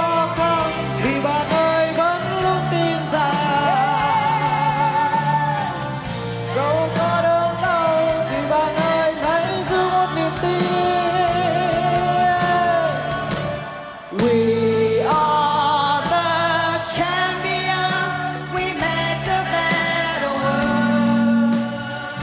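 Background music: a Vietnamese pop song, a woman's voice singing a wavering melody over full band backing, with a brief dip about fourteen seconds in.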